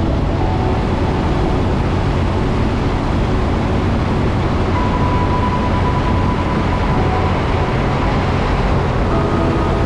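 Steady rumble of a vehicle driving through a road tunnel: engine, tyre and wind noise with no break.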